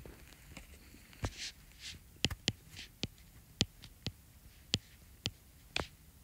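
Stylus tapping and sliding on a tablet's glass screen during handwriting: about a dozen sharp clicks at irregular intervals, with a few soft scratchy strokes between them.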